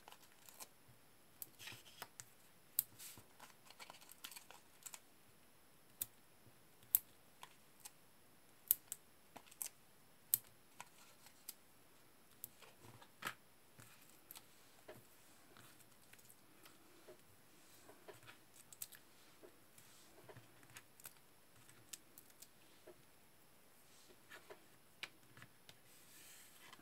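Small sharp clicks and light rustling of foam adhesive dots (Dimensionals) being peeled off their backing sheet and pressed by fingertips onto the back of a cardstock panel. The clicks are scattered and come most often in the first half.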